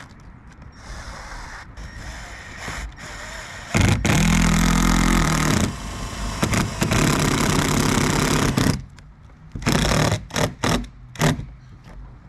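Cordless drill running under load as it drives stainless self-drilling screws through the skylight flange: one long run of about five seconds, then several short trigger bursts as a screw is seated.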